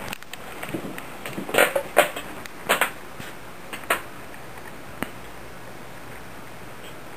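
Two dogs playing on a dog bed while the puppy chews a toy: a cluster of short, sharp clicks and knocks in the first half, loudest about two seconds in, and one more click a little later.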